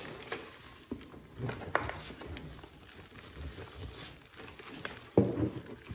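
Craft handling noise: a clear plastic bag crinkling and light taps and rustles against a cardboard box, with a short louder burst of handling noise near the end.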